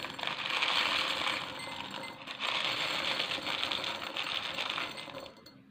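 Small coloured pebbles pouring from a plastic container into a cut-glass vase, a continuous rattle of stones hitting the glass and each other. It eases briefly about two seconds in, picks up again, and stops near the end.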